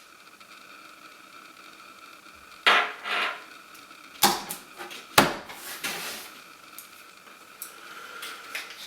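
Handling noise as a gaming mouse is unboxed: about five sharp knocks and clicks, some followed by brief rustling, bunched in the middle of an otherwise quiet stretch.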